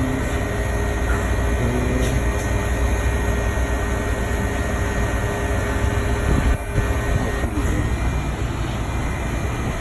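Refrigeration condensing unit running steadily: a constant fan and compressor noise with a faint steady hum.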